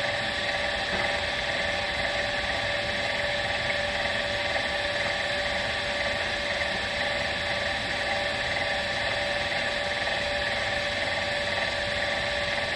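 1950 Farmall C's electric starter cranking the cold engine in a steady moan, without the engine catching: a cold no-start at 10 degrees.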